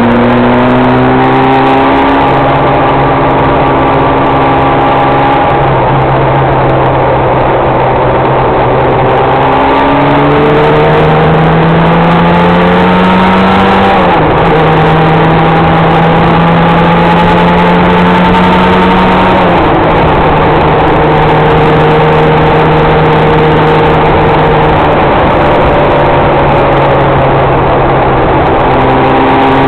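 Vehicle engine under way at road speed, its pitch climbing twice and each time dropping suddenly, as at a gear change, then holding steady. Underneath runs a loud, steady rush of wind and road noise.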